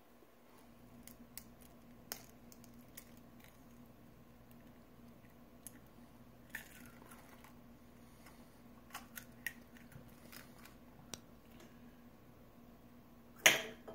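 Faint clicks and crunching of eggshell as a cracked egg's shell is handled over a glass measuring cup of pancake mix, then one sharp crack near the end as an egg is knocked against the glass.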